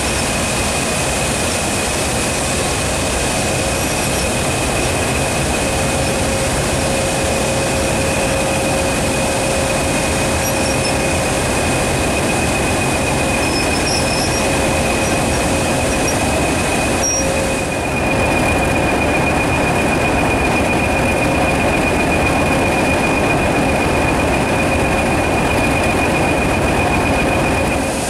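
British Rail Class 20 diesel locomotive running as it passes slowly at close range, with a steady high whistle over the engine noise.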